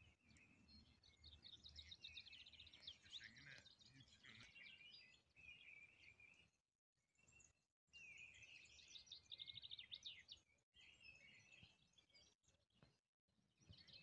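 Wild songbirds singing faintly: phrases of quick rattling trills and whistled notes, broken by short silent gaps.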